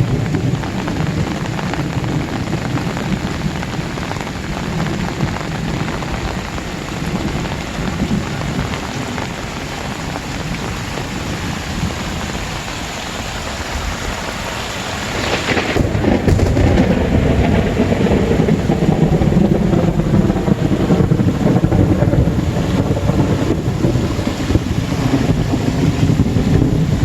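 Very heavy rain pouring down steadily. About halfway in, a deep rumble comes in and stays loud for the rest.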